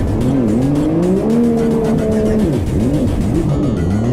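Racing jet ski engines revving hard, their pitch repeatedly rising and dipping, with several engines overlapping.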